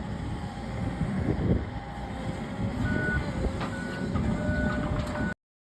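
Heavy machinery engine running with a low rumble while a backup alarm beeps repeatedly, the beeps starting about halfway in; the sound cuts off abruptly near the end.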